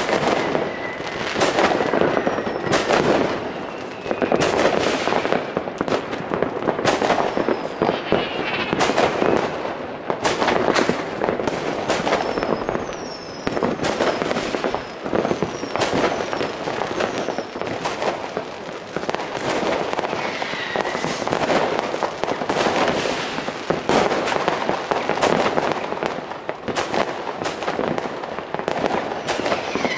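Dense, continuous fireworks: many overlapping bangs and crackles from rockets and firecrackers going off in quick irregular succession, with a few whistling rockets gliding in pitch.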